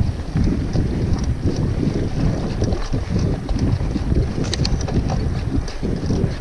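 Mountain bike being ridden along a sandy trail, with wind buffeting the microphone as a steady low rumble. Scattered short clicks and rattles come from the bike, a cluster of them about four and a half seconds in.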